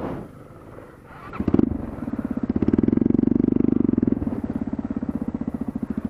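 Small motorcycle engine pulling under throttle on a dirt trail, a rapid even pulsing that comes up about a second and a half in and eases slightly near the end.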